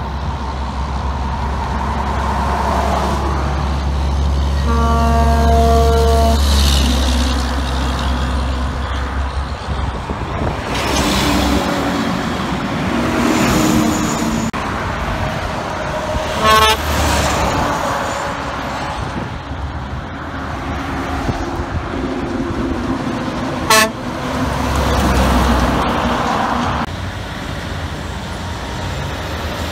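Heavy diesel trucks, including dump trucks and a cement mixer, passing close by with a deep engine rumble and tyre noise. About five seconds in a truck air horn sounds one held blast of about two seconds. Later there are two short, sharp horn toots, several seconds apart.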